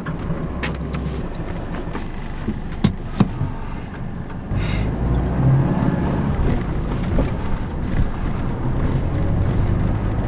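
Nissan Navara pickup's engine and drivetrain running, heard from inside the cab, with a few sharp clicks over the first three seconds. About four and a half seconds in, the engine and road noise grow louder and then hold steady as the truck drives.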